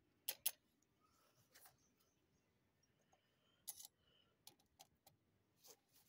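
Scattered light clicks and clinks of a metal cassette tape deck mechanism being handled and set down on a concrete floor: about eight short, sharp taps at uneven intervals, the loudest two just after the start.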